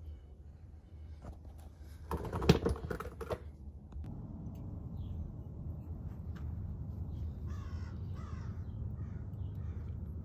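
A brief clatter of knocks and clicks about two seconds in, then a steady low outdoor rumble with two short harsh caws near the end.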